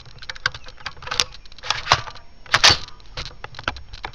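A rapid, irregular run of sharp clicks and knocks, the loudest about a second, two seconds and two and a half seconds in.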